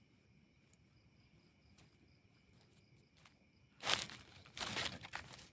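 Crickets and other night insects chirping steadily in the forest. About four seconds in, two loud bursts of rustling close by.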